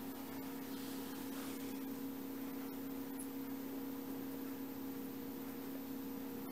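Quiet room tone: a steady low hum with an even hiss over it.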